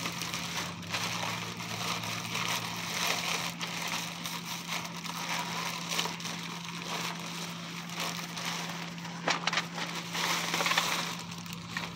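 Large plastic poly mailer bag rustling and crinkling as it is handled and pulled open, with a continuous crackle.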